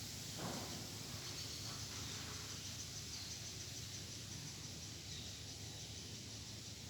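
Faint, fast, high-pitched insect chirping in short runs over a steady low hum and hiss.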